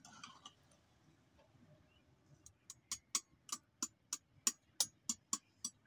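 A metal spoon clicking against the side of a metal cooking pot, about a dozen sharp, even knocks at roughly three a second, starting about halfway in, as the pot's contents are stirred.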